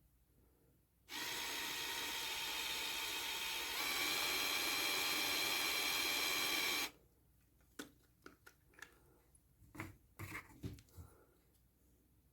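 VGR V-722 electric epilator's small motor switched on, running with a steady buzzing whine, then stepping up to a higher, louder whine about halfway through, its second speed setting, before being switched off. A few plastic clicks and knocks of handling follow.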